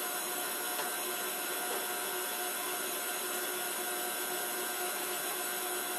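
KitchenAid Artisan stand mixer's motor running steadily on speed 4 with the wire whisk, a steady whine over a whirring hum as it whisks the liquid yeast mixture.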